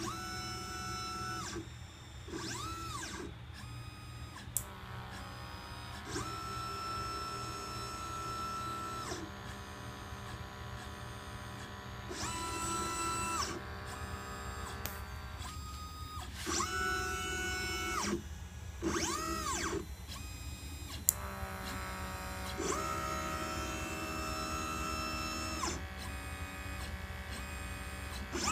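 LitePlacer pick-and-place machine's stepper motors whining through a string of head and gantry moves. Each move is a pitched whine that rises, holds and falls away, with short pauses between, over a steady low hum. Two sharp clicks stand out, one about four and a half seconds in and one about twenty-one seconds in.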